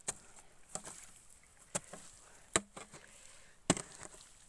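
A long-handled hoe chopping into wet mud at the edge of a flooded irrigation furrow: about five sharp, irregular strikes roughly a second apart, the loudest near the end. The mud is being shifted to steer irrigation water into the crop.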